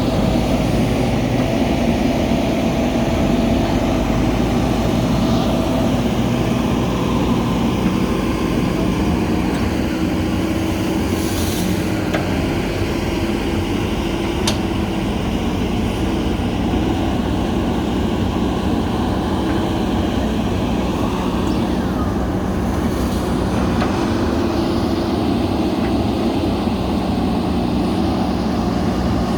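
Backhoe loader's diesel engine running steadily under working load, its pitch shifting a few times as the revs change, with two brief hissing sounds partway through.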